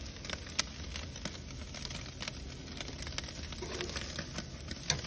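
Raw ribeye steaks sizzling on a grill grate over a glowing charcoal fire: a steady hiss with scattered crackles and pops.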